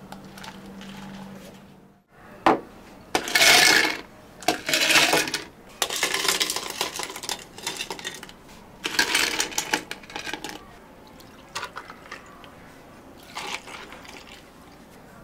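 Drink-making sounds at a café counter: a steady low hum that stops abruptly about two seconds in, then clinks of cups and ice among several noisy bursts about a second long, like liquid or ice being poured.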